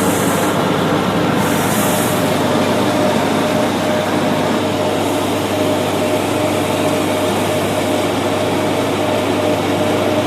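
Combined rice hulling and milling machine running steadily: a loud, even machine drone with a constant hum, plus a brief hiss at the start and again about a second and a half in.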